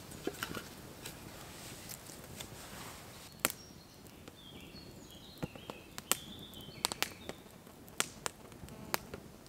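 Small campfire of split oak, chestnut and birch crackling, with sharp irregular pops scattered through. A bird sings short wavering phrases in the middle.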